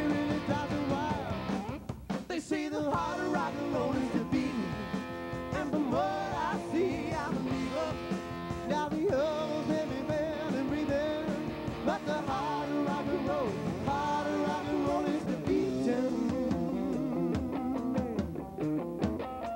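A live rock band playing: electric guitars, bass guitar and drum kit, with a lead melody line that bends and wavers in pitch over the steady chords.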